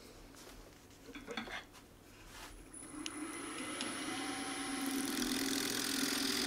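A few light knocks as the wooden blank is handled, then the wood lathe's motor starting up about three seconds in. Its whine rises in pitch as it spins up and then runs steadily.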